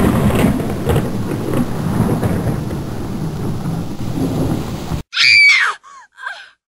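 Thunderstorm sound effect: rolling thunder over heavy rain, cutting off suddenly about five seconds in. A short, high cry that rises and falls follows, then two fainter short calls.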